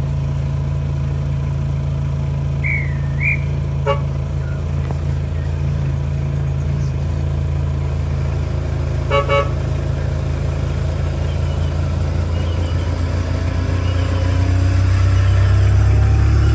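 The horn of a 7.25-inch gauge miniature V/Line G class locomotive sounds a brief toot about four seconds in and two quick toots about nine seconds in. Under the horn the locomotive's engine hums steadily and grows louder near the end as it moves off.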